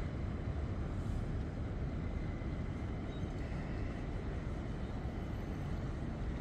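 Steady low rumble of a Thames Clippers Uber Boat catamaran passing close on the river, even throughout.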